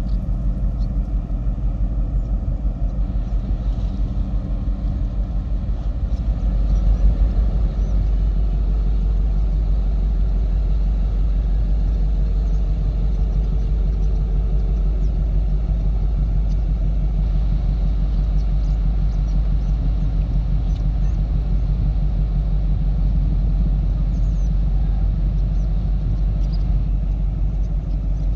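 Steady low rumble, a little louder from about seven seconds in.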